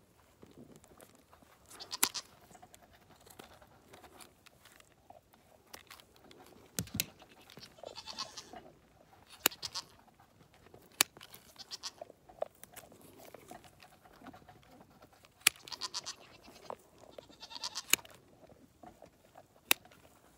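Hand-held hoof shears snipping through a goat's overgrown hoof wall: about seven sharp clicks spread a few seconds apart. Goats bleat in the background.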